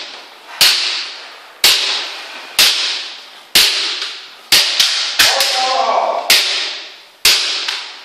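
Kendo sparring: about ten sharp cracks of bamboo shinai strikes and stamping feet on a wooden floor, roughly one a second with a quicker cluster about halfway through, each ringing on in the hall.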